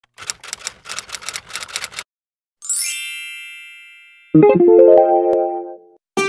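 Intro jingle made of short sound effects and music. A quick run of light percussive hits comes first. Next a shimmering chime sweeps up and rings out, then a keyboard chord is struck and held for about a second and a half.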